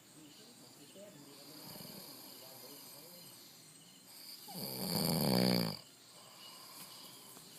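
A person snoring: soft breathing for about four seconds, then one loud, fluttering snore lasting about a second.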